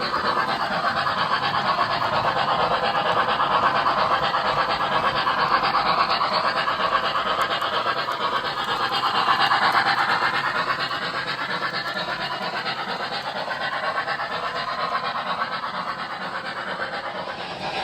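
O gauge model steam train running on the track, a steady rolling rush of wheels on rail that swells louder twice as it comes close.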